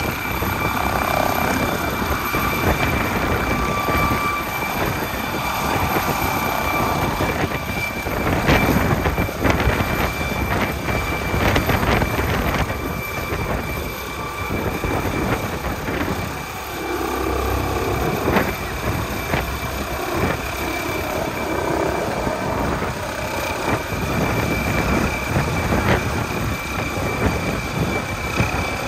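MD900 Explorer twin-turbine helicopter running, a steady high turbine whine over a broad rush of rotor and engine noise.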